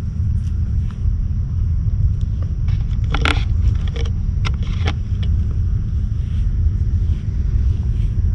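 Wind buffeting an action camera's microphone as a steady low rumble, with a cluster of sharp clicks and crackles about three to five seconds in.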